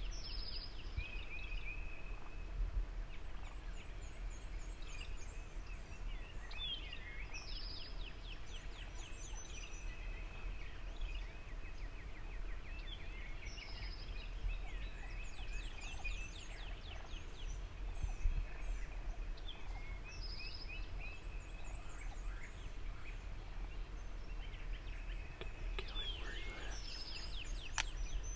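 Several songbirds singing at once, with overlapping trills, quick descending notes and whistled phrases throughout, over a steady low rumble.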